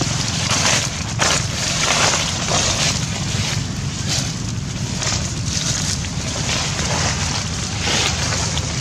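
Wind buffeting the microphone: a steady rushing noise with a low rumble, swelling in gusts every half second to a second.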